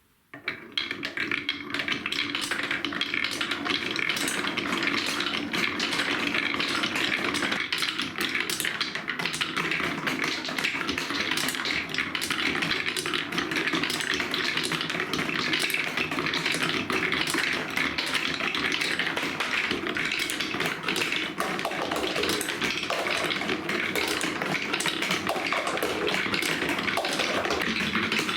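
Many marbles rolling and clattering down a TrixTrack marble-run course: a dense, continuous rattle of clicks that starts suddenly about half a second in.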